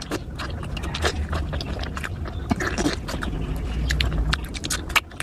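Close-miked chewing and eating: many quick wet clicks and smacks with some scraping, over a steady low hum.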